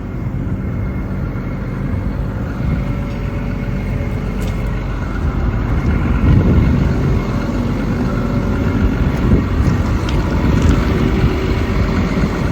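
XCMG XE210CU excavator's Cummins diesel engine idling steadily. A louder, uneven low rumble comes in from about halfway through.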